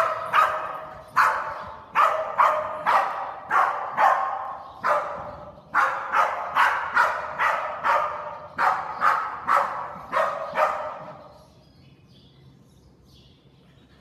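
A dog barking repeatedly at about two barks a second, each bark ringing briefly in a metal-walled hall. The barking stops about eleven seconds in.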